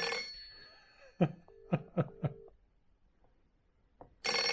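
A 1980s rotary telephone's bell ringing on an incoming call: one ring dies away within the first second, and a second ring starts near the end. A few sharp clicks come between the rings.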